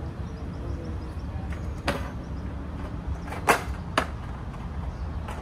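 A few sharp knocks and clunks, the loudest about three and a half seconds in, as a case is lifted out of a van's side door and set down on asphalt, over a steady low rumble.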